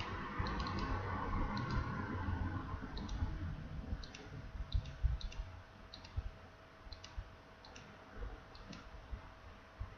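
Computer mouse button clicking, one sharp click at a time at an irregular pace of about one to two a second, as keys of an on-screen keyboard are clicked to enter a password. A soft hiss underlies the first three seconds and then dies away.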